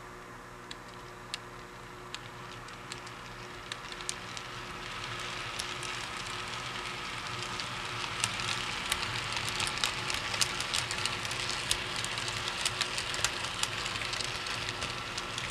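Model train cars rolling along the track, their wheels clicking and crackling over rail joints and switches. The sound grows louder about four seconds in as the coach and milk cars pass close by.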